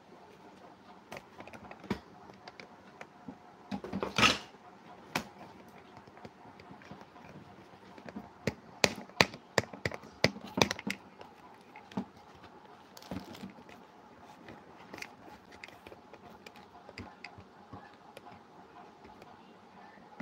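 Handling noise from a phone camera being picked up and moved: scattered clicks and knocks, a brief rustle about four seconds in, and a quick run of sharp clicks between about eight and eleven seconds.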